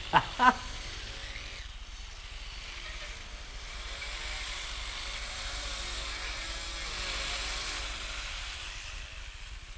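Motors of a remote-controlled manipulator robot's arms running as the arms move, a steady hiss over a low hum that grows a little louder in the middle and eases off near the end.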